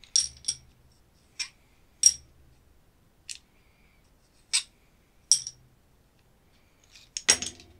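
Plastic discs, spacers and metal contacts of a dismantled rotary isolator switch clicking and clinking as they are handled and fitted onto the switch shaft: about eight sharp clicks spaced through, with a louder cluster of clicks near the end.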